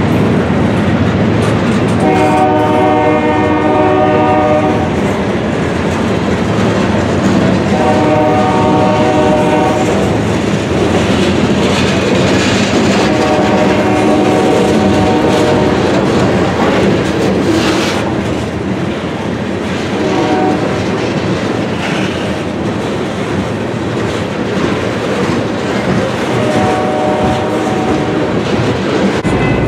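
Freight cars rolling past close by, a steady rumble and clatter of wheels on rail. Over it the locomotive's multi-chime horn sounds five times from up ahead: three long blasts, a short one, then a longer one near the end.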